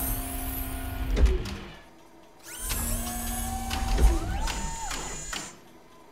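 Robotic arms of a medical machine moving with a whirring, whining motor sound, its pitch gliding up and down, with a clunk about a second in and another about four seconds in. It comes in two spells with a short pause between them, the second stopping shortly before the end.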